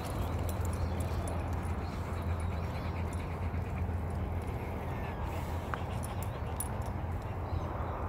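Two German Shorthaired Pointers panting close by, over a steady low rumble, with a few light clicks.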